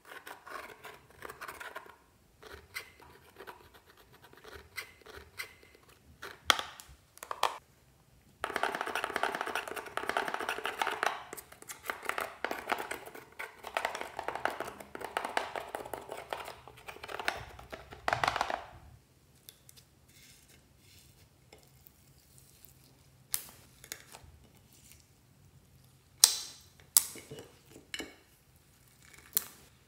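A metal spatula scraping pressed eyeshadow and sequins out of a makeup palette into a glass dish: a dense, scratchy rasp, loudest through the middle. Near the end come a few sharp pops as hands squeeze clear slime.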